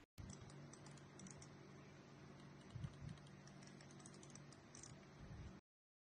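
Razer DeathAdder Essential gaming mouse's buttons clicking faintly a few times, with a soft knock about three seconds in.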